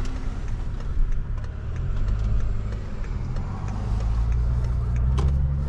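A BMW 540i's turbocharged straight-six, fitted with a catback exhaust and a downpipe, running with a low, steady exhaust drone that rises slightly in pitch over the last couple of seconds.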